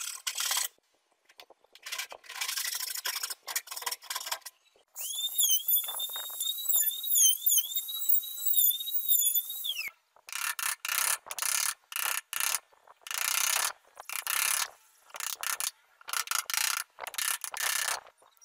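Hand tools working a soft pine block: scratching strokes of a steel point scoring the wood, then a high, wavering squeak lasting about five seconds. After it comes a run of short cutting strokes, one every second or so, as a blade pares curled shavings from the clamped block.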